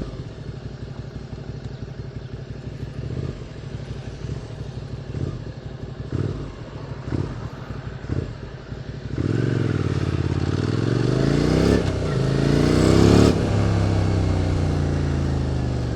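QJ Motors SVT650X V-twin through an Arrow Racetech exhaust, ticking over at low revs for the first several seconds. About nine seconds in it accelerates hard, the pitch climbing through two quick gear changes, then it settles and eases off.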